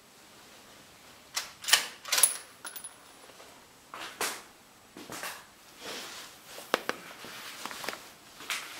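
A string of irregular metal clicks and clinks from handling a rifle, one with a brief high ring, starting about a second and a half in and recurring until near the end.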